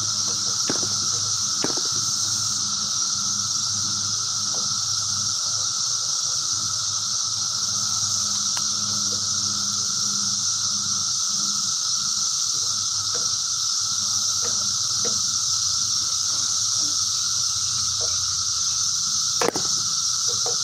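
Steady high hiss with a few faint clicks as the propeller of a model airplane glow engine is flipped by hand; the engine does not catch.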